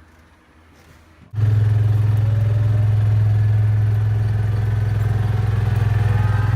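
Quiet at first, then a small engine running steadily from about a second in. It has a low, even hum with a fast pulse and no rise or fall in pitch.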